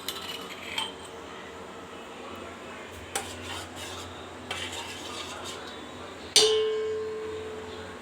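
Metal kitchen utensils clinking lightly, then a loud metallic clang about six seconds in that rings on with one clear tone, fading over a second and a half.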